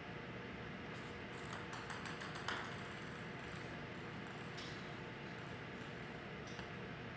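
Ping pong ball batted by a cat, clicking and skittering across a ceramic tile floor: a quick run of light clicks from about one second in, with a couple of fainter clicks later.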